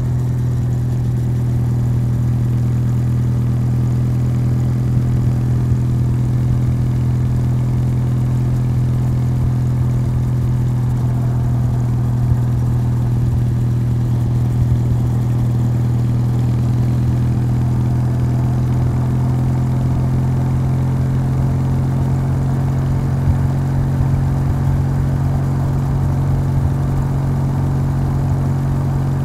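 Kawasaki W800's air-cooled parallel-twin engine running steadily through its stock exhaust while the motorcycle cruises at an even speed.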